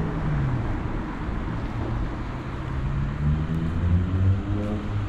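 Cars driving past on a wet street. One car's engine fades and drops in pitch right at the start; from about three seconds in, another car's engine rises in pitch as it accelerates by.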